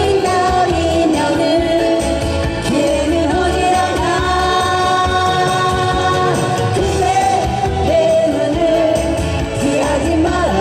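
Live singing of a Korean pop song to strummed acoustic guitars, over a steady bass beat.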